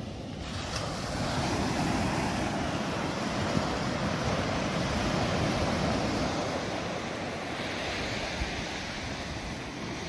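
Ocean surf breaking and washing up the beach: a steady rushing that swells about a second in and eases slightly near the end.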